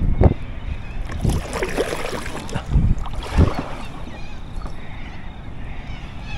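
Sounds from a fishing kayak on the water: a few dull knocks and bumps on the hull, with wind on the microphone.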